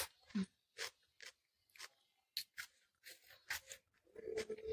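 Crisp, irregular crunches of a mouthful of raw yellow bell pepper being chewed close to the microphone. A steady hum comes in near the end.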